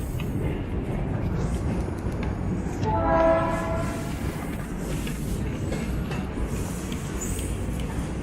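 A steady low rumble of passing traffic or a train, with a single short horn blast about three seconds in.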